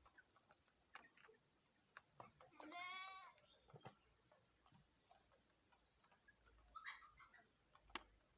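Faint chicken sounds: one drawn-out call a few seconds in, among scattered soft clucks and short clicks.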